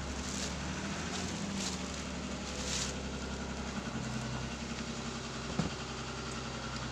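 Plastic bag crackling in a few short rustles in the first three seconds as a new chainsaw is pulled out of it, over the steady low hum of an idling vehicle engine.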